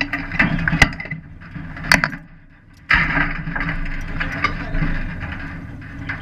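Clicks and knocks from the in-car camera being handled against the race car's cage, then, just under three seconds in, a steady rumble starts abruptly and keeps going.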